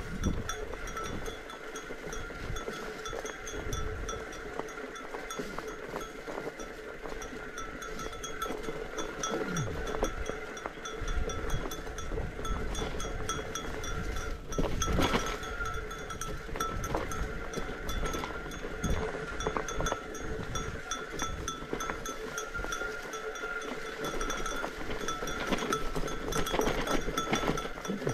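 A small bell jingling continuously as it is shaken, over the rough rumble of fat-bike tyres rolling down a dirt trail.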